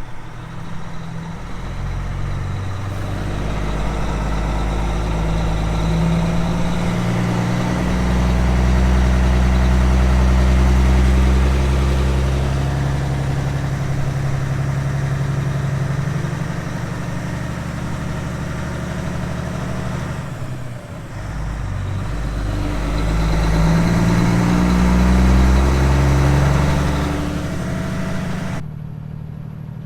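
Diesel engine of a heavily loaded grain truck accelerating through the gears. The engine note climbs, then falls away at each shift, with a clear break about two-thirds of the way in before it pulls up again. The sound changes abruptly just before the end.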